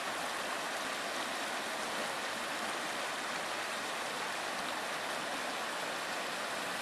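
Shallow river water running over a rocky riverbed, a steady, even rush of a riffle with no change in level.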